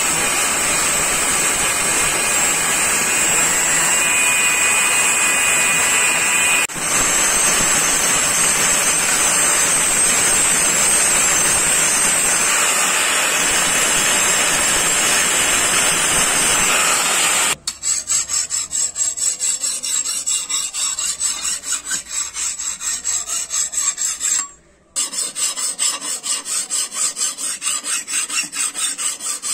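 Handheld angle grinder running steadily with its abrasive disc pressed against a forged steel billhook blade, grinding and shaping it. About two-thirds of the way in this gives way to a hand file drawn back and forth along the blade in rhythmic rasping strokes, about two to three a second, sharpening the edge.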